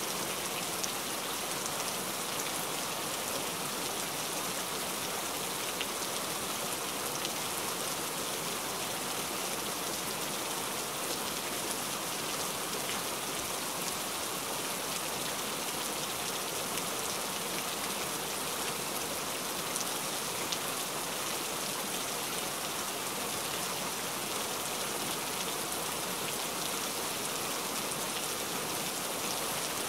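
Heavy rain falling steadily, an even hiss with the odd sharper drop ticking through it.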